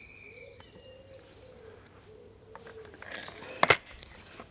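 Birds chirping with a dove cooing low in the background, then, about three and a half seconds in, one sharp, loud crack of a Remington Express .22 spring-piston break-barrel air rifle firing.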